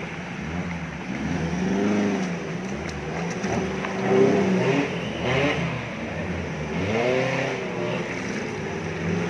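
A 4x4 off-road vehicle's engine revving up and falling back in several surges as it crawls through a shallow muddy stream.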